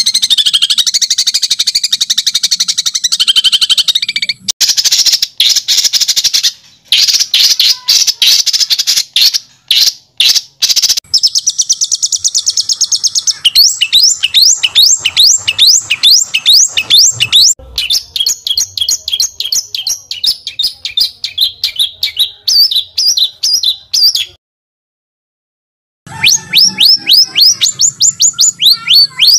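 Songbird singing a fast, harsh 'tembakan' song of rapidly repeated high notes and trills, with a run of quick upward-sweeping whistles in the middle. The song cuts to dead silence for about two seconds near the end, then starts again.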